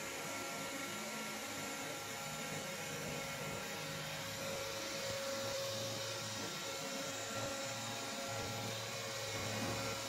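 Roborock S6 robot vacuum running as it cleans a shaggy rug: a steady whir from its suction fan and brushes, with a faint even tone in it.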